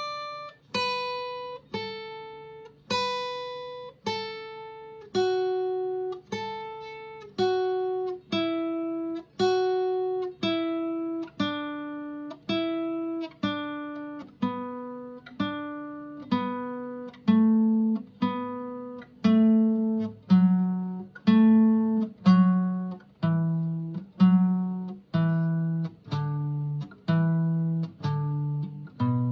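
Acoustic guitar played with a pick, one note at a time, slowly: a B minor pentatonic rock lick, each note ringing out and fading before the next, about one a second. The notes work their way down in pitch from the high strings to the low ones.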